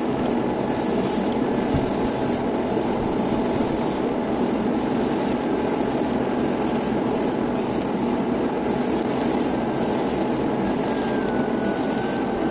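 Steady rush of air from a hobby spray booth's extractor fan, with an airbrush spraying paint onto a small model part.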